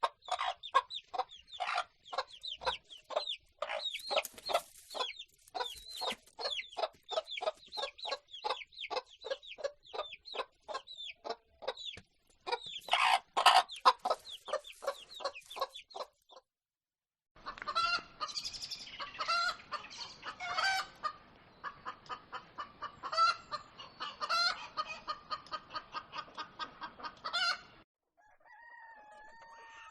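Domestic hens clucking in a quick, steady run of short calls, with a louder burst of cackling partway through. After a brief break, hens cluck again over a noisier background. Near the end, a rooster starts a long drawn-out crow.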